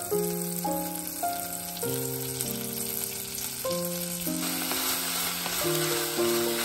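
Butter sizzling as it melts in an enamelled cast-iron pot, then sliced onions frying and being stirred with a wooden spatula, the sizzle growing louder from about four seconds in. Background music with a melody of held notes plays throughout.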